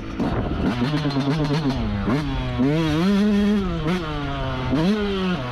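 Yamaha YZ125's 125cc single-cylinder two-stroke engine revving up and down as the dirt bike is ridden. It gives quick throttle blips, with a longer held high rev about halfway through.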